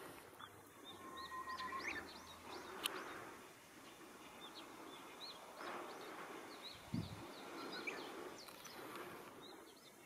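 Small birds chirping faintly in the background: many short, high chirps, with a longer drawn-out whistled note in the first two seconds. A low thump about seven seconds in.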